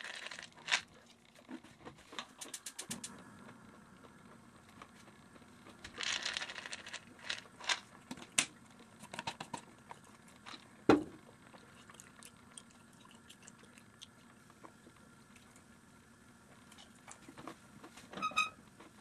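Kitchen handling sounds as food containers are picked up and set down: scattered light clicks and taps, a brief rustle about six seconds in, and one sharp knock about eleven seconds in.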